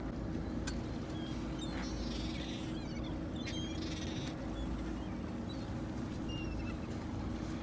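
Gulls calling over a feeding flock, with chattering cries about two seconds in and again about four seconds in, over the steady low hum of a boat's engine.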